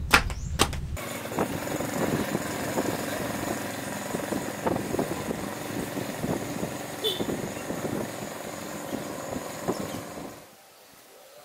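Small motorcycle engine running as the bike rides along the road, cutting off abruptly near the end.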